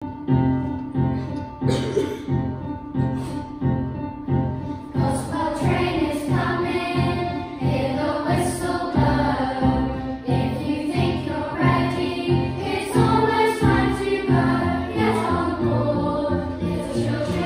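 Children's choir singing with grand piano accompaniment. The piano's steady pulsing beat is heard from the start, and the voices come in fully about five seconds in.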